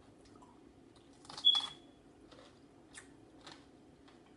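A single loud, short crunch about a second and a half in, likely a bite into a cream-cheese-stuffed pepper topped with crunchy Takis, followed by a couple of faint crunching chews.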